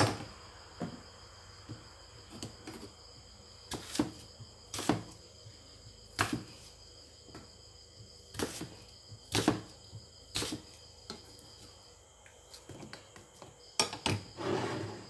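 A kitchen knife cutting a green apple on a thick wooden chopping block: sharp, irregularly spaced knocks of the blade striking the wood, about a dozen over the stretch. A faint steady high tone runs underneath.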